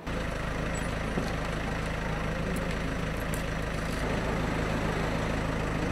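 Steady low engine hum, like a large vehicle idling, coming in suddenly at the start.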